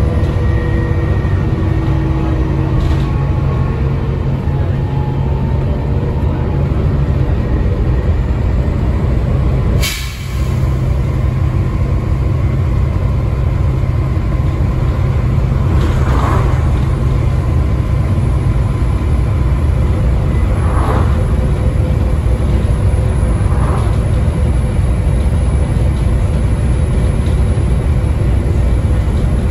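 Volvo D7C 7.3-litre diesel and ZF Ecomat automatic gearbox of a Volvo B7TL double-decker bus under way, heard inside the bus: a loud, steady engine drone with a gearbox whine. About ten seconds in there is a click and a brief dip in the engine sound, and a few short sharp sounds come later on.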